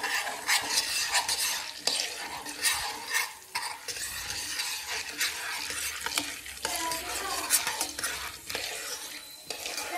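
Metal spoon stirring popcorn kernels in hot ghee in a steel pot, scraping and knocking against the pan over a steady sizzle.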